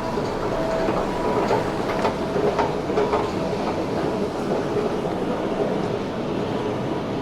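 Elizabeth Line train running, a steady noise with a few sharp clicks from the wheels on the track about one and a half to three seconds in.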